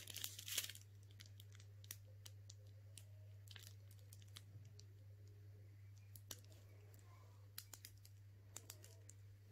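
Near silence: faint, scattered small clicks and crinkles of close handling, over a low steady hum.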